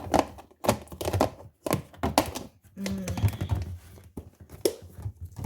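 Plastic food containers and lids being handled: an irregular run of knocks, taps and clatters, some sharp.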